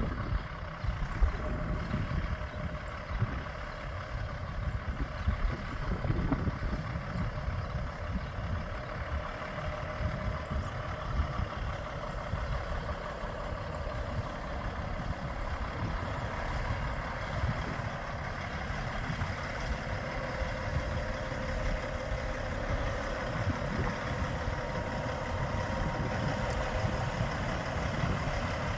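2008 Peterbilt 388 tri-axle semi tractor's diesel engine running steadily as the truck drives slowly along a gravel driveway, growing a little louder over the last several seconds as it comes closer.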